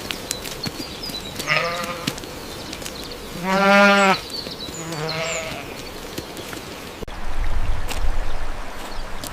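Three bleats from a farm animal, the middle one longest and loudest, followed near the end by a loud low rumbling noise.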